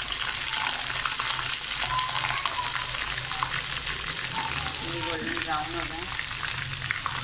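Potato fries deep-frying in hot oil in a kadai, a steady sizzle full of small crackles. The fries are golden brown and done.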